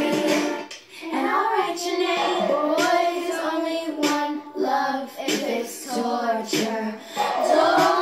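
Young girls singing together, with a short break about a second in.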